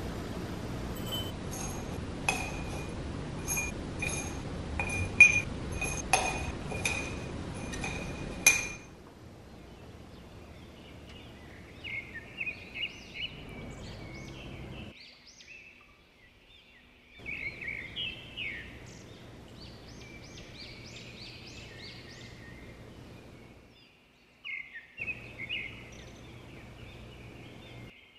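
Small glass jars clinking as granola is filled into them: about a dozen light strikes against the glass, each ringing briefly, over the first nine seconds. After that, birds chirp intermittently over a faint steady background.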